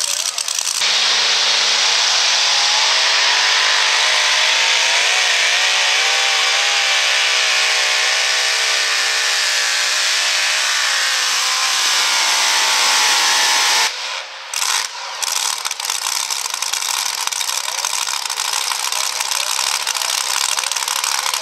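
Supercharged pulling-truck engine at full throttle as it drags a weight sled, its pitch climbing steadily through the pull. About 14 seconds in the sound drops away sharply, then loud, rough engine noise carries on with no clear pitch.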